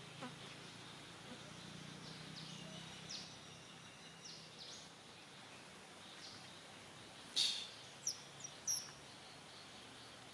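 Quiet woodland ambience with a faint steady high hum and scattered short high chirps and squeaks. A sharper, louder squeak or click comes about seven seconds in, followed by two smaller ones.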